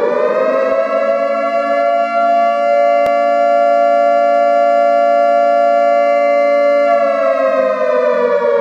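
Air-raid siren wailing at a steady pitch, then starting to wind down and fall in pitch about seven seconds in.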